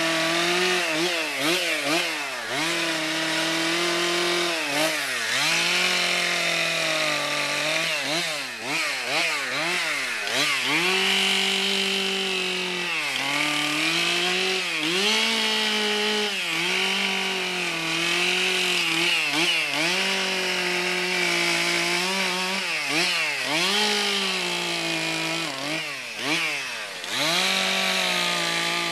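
Two-stroke chainsaw carving into a wooden log. Its engine pitch drops and climbs again over and over as the throttle is eased and opened and the chain bites into the wood, with a few longer stretches held at full speed.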